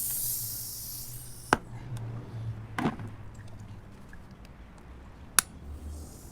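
Air hissing out of a punctured tire around a nail being worked loose with vise pliers, stopping after about a second and a half. Then three sharp metallic clicks as the pliers grip and work the nail.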